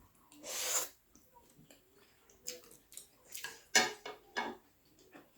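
Eating sounds at a table. A brief noisy rush comes about half a second in, then scattered light clicks and taps of cutlery against a dish.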